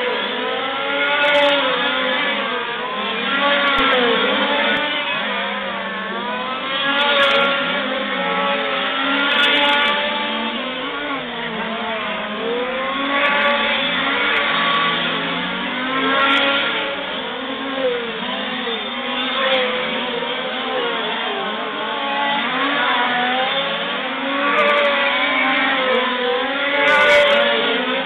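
Several 1:5 scale RC race trucks' small two-stroke petrol engines buzzing together at racing speed. Their pitches overlap, each rising as a truck accelerates and falling as it lifts off for the corners, again and again.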